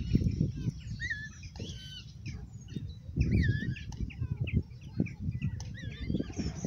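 Small songbirds singing: a string of varied short chirps and sliding whistled notes. Low, irregular muffled rumbling runs underneath and is the loudest part.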